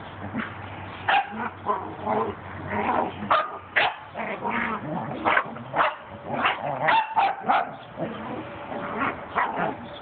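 Small dogs play-fighting, with many short, irregular barks and yips coming thick and fast through the middle of the stretch.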